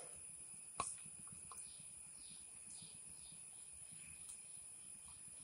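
A quiet kitchen with one light metal click about a second in, a steel spoon knocking against a small pan while scooping ghee into it, and a couple of fainter taps after. Faint high chirps run in the background.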